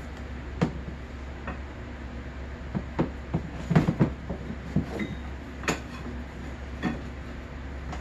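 Snowmobile drive belt being worked by hand onto the clutch sheaves: a string of irregular knocks and clunks, the loudest cluster about halfway through, over a steady low hum.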